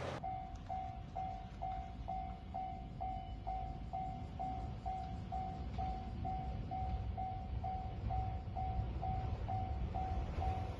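Japanese railway level-crossing warning bell ringing steadily, about three dings a second, after the train has passed, over a low rumble.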